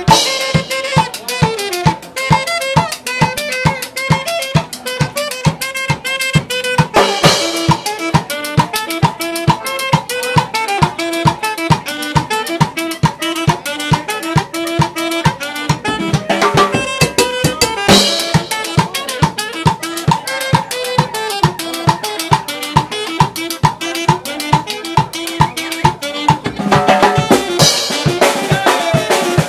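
Norteño band playing an upbeat dance tune: a steady kick-drum beat about twice a second with snare and cymbal crashes every ten seconds or so, under electric bass and a saxophone melody.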